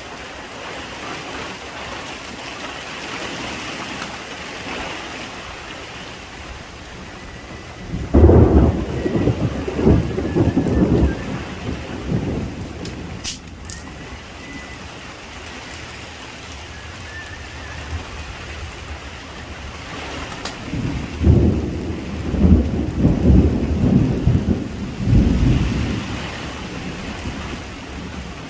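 Steady rain falling, with thunder rumbling twice, each roll lasting a few seconds: a thunderstorm breaking.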